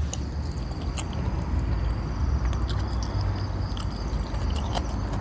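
A low steady rumble, with evening insects trilling on one steady high note and small scattered clicks over it.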